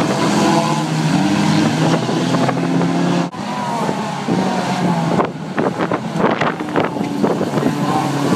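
Several banger racing cars' engines running and revving together, with rising and falling engine notes. A run of sharp knocks comes a little past halfway through.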